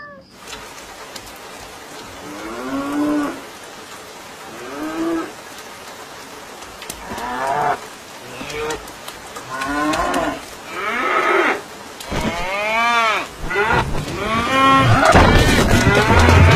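An animal calling over and over, one drawn-out pitched call every second or two. The calls grow louder and run into each other near the end.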